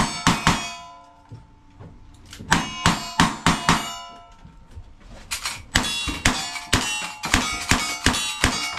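Rapid gunshots, each followed by the ring of a struck steel target. They come in three quick runs with short pauses between: a few at the start, about five near the middle, and a long fast string from just past halfway on.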